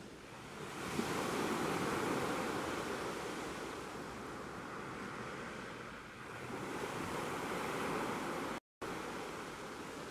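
Sea waves washing on a shore: surf noise swelling up about a second in, easing off, then swelling again around six and a half seconds. A split-second gap of silence near the end.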